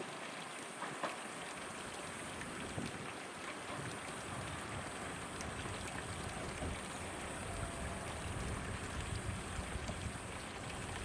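Two-car JR 213 series electric train approaching slowly in the distance: a low rumble of wheels and motors builds gradually under a steady outdoor hiss, with a thin, steady high-pitched hum throughout.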